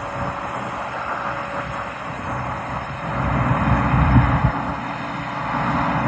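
Engine running steadily with a low hum and a rushing noise over it, the low rumble swelling for about a second and a half from three seconds in.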